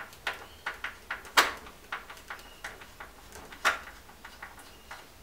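Screwdriver backing long screws out of a clock's base: a string of irregular small clicks and scrapes, with two louder sharp knocks, one about a second and a half in and one near the four-second mark.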